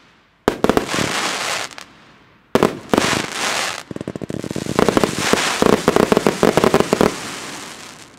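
Rubro Transbomber firework shots going off. There are sharp reports about half a second in and two and a half seconds in, each trailing off in a hiss, then a long run of dense crackling stars that fades out near the end.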